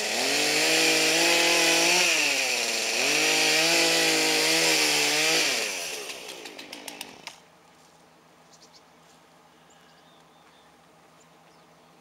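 Two-stroke Poulan chainsaw revved up and held at high speed twice, dipping briefly in between, then dropping back and shutting off about seven seconds in. The chain is on backwards, so the saw is running without biting into the wood.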